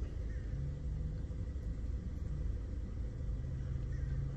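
Steady low rumble of a car engine idling, heard from inside the car's cabin.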